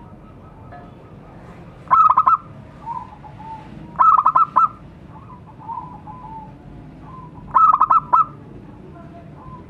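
Zebra dove (perkutut) cooing: three song phrases, each a quick stuttering run of clipped, ringing notes, about two seconds apart at first and then after a longer gap.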